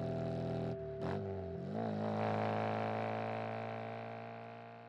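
Background music: a low, held droning chord that slowly fades out.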